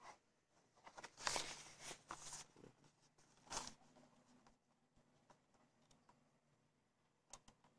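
Near silence in a small room, broken by a few soft rustling handling noises between about one and four seconds in and a couple of faint clicks near the end.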